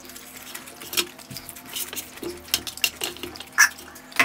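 Close-miked eating sounds: chewing and mouth smacks of fried kuey teow (flat rice noodles), with a plastic spoon clicking and scraping on a metal tray. A few clicks stand out, about a second in and near the end.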